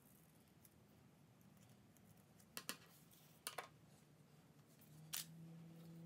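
Scissors snipping a paper strip: a few faint, sharp snips, two quick pairs about a second apart and a single one near the end. A faint low hum comes in near the end.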